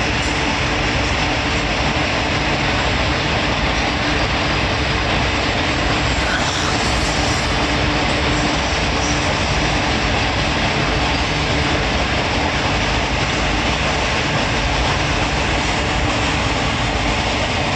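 Loaded freight train of covered wagons rolling past: a steady, even rumble of wheels on rails, with no separate clicks or horn.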